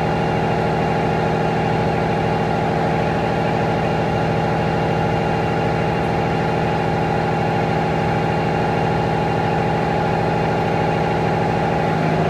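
An MTE EM90 bed-type CNC milling machine side-milling a metal block with a roughing end mill: a steady, pitched cutting hum with a rapid, even pulsing.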